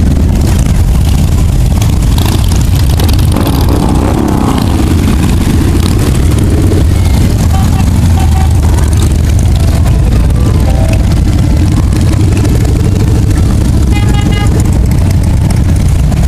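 A steady stream of motorcycles, many of them Harley-Davidson V-twin cruisers and touring bikes, riding past at low speed, their engines running loud and low without a break.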